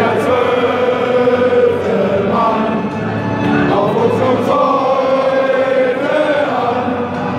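A large stadium crowd of football supporters singing together in unison, a slow song in long held notes, with scarves held up.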